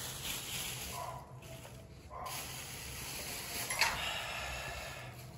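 A man drinking water from a thin plastic bottle, the plastic crinkling and hissing as he drinks, with a sharp click about four seconds in.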